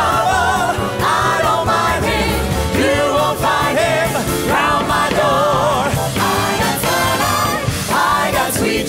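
A swing big band with saxophones, trombones, piano and drums plays while a group of singers sings together over it.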